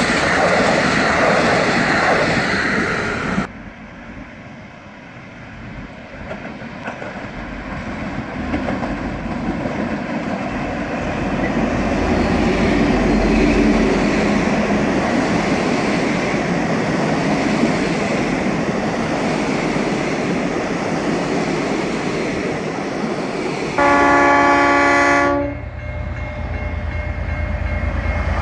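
Train running on the rail line. A few seconds in, the sound cuts to another train, which approaches and grows steadily louder. Near the end it sounds one loud horn blast of about a second and a half while it keeps rolling by.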